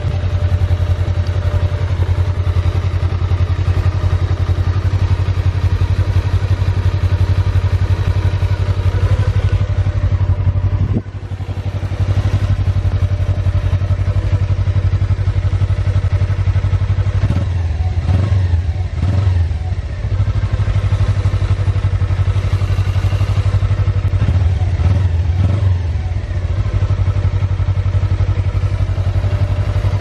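2019 Suzuki GSX250R's 248 cc parallel-twin engine idling steadily, with two short throttle blips where the revs rise and fall, at roughly two-thirds of the way through and again near the end.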